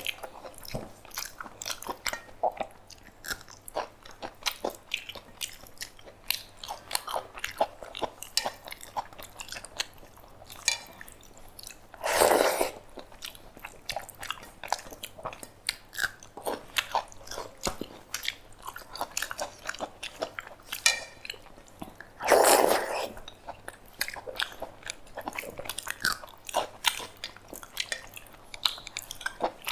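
Close-miked eating sounds: chewing and wet mouth clicks and smacks while eating a rice meal. Twice, about ten seconds apart, there is a louder, longer burst of noise.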